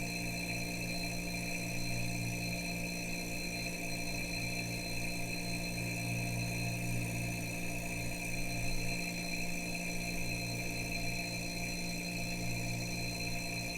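Refrigerator humming steadily: a low compressor hum with a few higher steady whining tones over a soft hiss.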